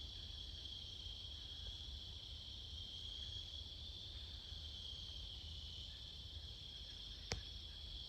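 Insects chirring in a steady, unbroken high drone, over a low rumble, with a single sharp click about seven seconds in.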